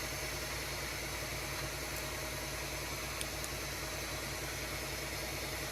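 Bambu Lab A1 3D printer running its start-of-print routine: a steady hiss with a fast, even buzz from its motors. The machine is vibrating the folding table it stands on.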